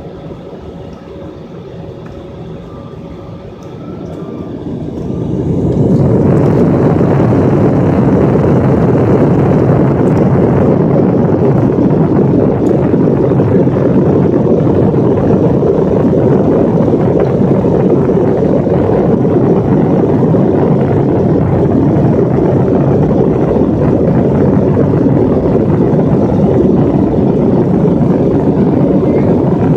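Jet airliner engines spooling up to takeoff thrust, rising steeply about four to six seconds in, then a loud steady roar through the cabin during the takeoff roll.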